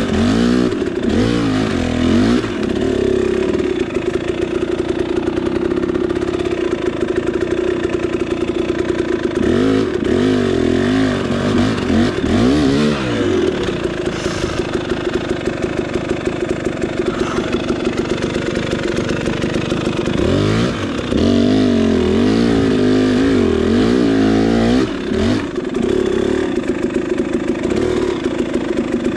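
KTM 300 two-stroke dirt bike engine under way at low speed, its pitch rising and falling as the throttle is worked on and off, with clusters of quick revs about a third of the way in and again past two-thirds.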